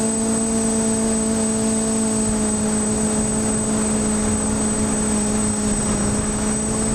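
Quadcopter's four brushless motors and 9x5 propellers droning at a steady pitch in flight, heard from the onboard camera, with a thin high whine above the hum.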